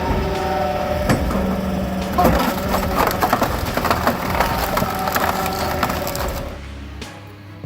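Tractor-mounted hydraulic log splitter forcing through oak logs: wood cracking and splintering in a run of sharp snaps over a steady machine hum. The sound drops off after about six and a half seconds.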